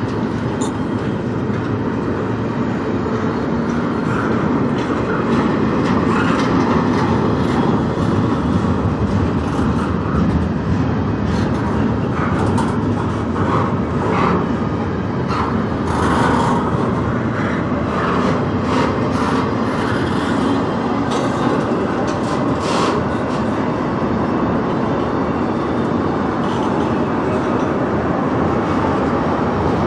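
Freight train of double-stack container cars and autorack cars rolling past at close range: a steady rumble of wheels on rail. A run of short, sharp sounds comes through in the middle.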